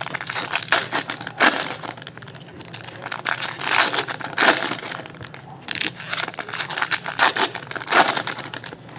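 Trading-card pack wrappers crinkling and tearing as packs are opened and handled, in irregular rustles and crackles.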